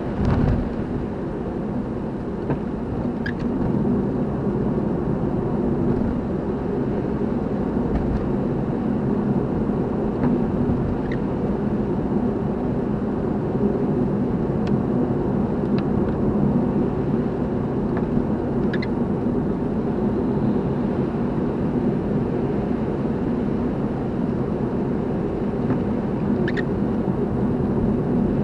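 Car driving along: steady road and engine rumble, with a low thump just after the start and a faint tick recurring about every eight seconds.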